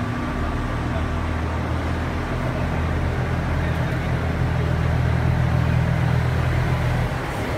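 A train's low, steady engine hum as the railcar draws in to couple. The hum grows louder partway through, then drops away suddenly near the end.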